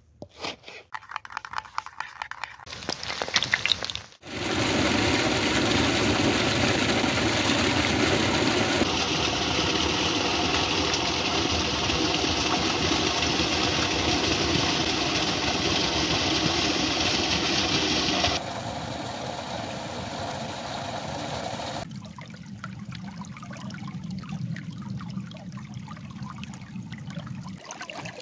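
A few crisp cuts of a knife through raw potato on a wooden board. Then, about four seconds in, a small waterfall splashing steadily and loudly into a pool. Later it gives way to a quieter shallow stream running over stones.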